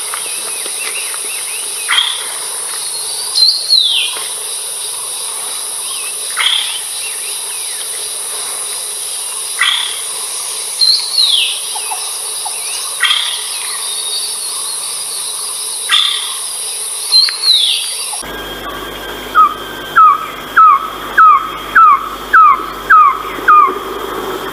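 Philippine trogon calling: single sharp downward-sweeping calls every couple of seconds over a steady high-pitched insect drone. About 18 seconds in the recording changes to a run of about eight short falling notes, evenly spaced.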